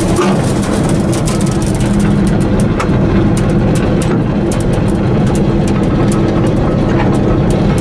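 Allis-Chalmers Gleaner combine's diesel engine running steadily under load, with a scatter of light ticks and rattles over the drone.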